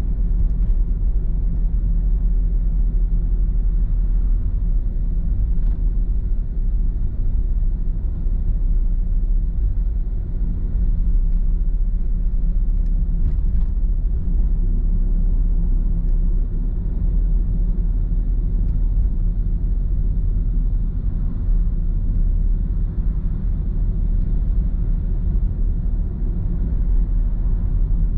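Steady low rumble of a car's road and engine noise heard from inside the cabin through a dashboard camera's microphone, with a couple of faint ticks.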